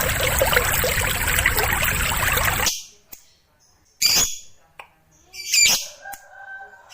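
A loud, even rushing noise with a thin steady high whistle, like running water, cuts off abruptly about two and a half seconds in. A cage lovebird then gives a few sharp, separate squawking calls, the last followed by a short held note.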